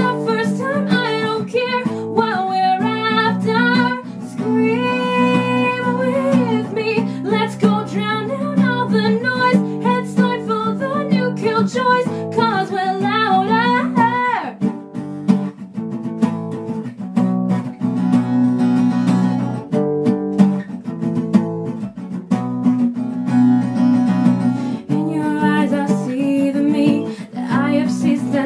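A woman singing a folk-style song over strummed acoustic guitar. About halfway through, the voice drops out for roughly ten seconds of guitar strumming alone, and the singing comes back near the end.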